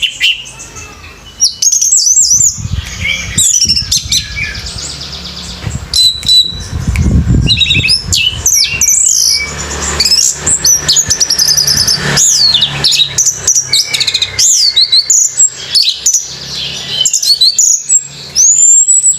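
Orange-headed thrush singing a loud, fast, varied song of whistled notes, chirps and sliding phrases, almost without a break.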